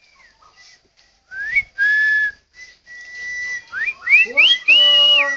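A run of clear whistled notes: quick upward slurs and held single tones, starting about a second in and growing busier and louder toward the end.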